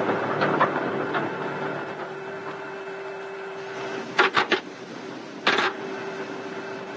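B-36 cockpit toggle switches clicking: a quick run of clicks about four seconds in and one more about a second later, over a steady hum. The engine noise dies away in the first couple of seconds as the engines stop turning over.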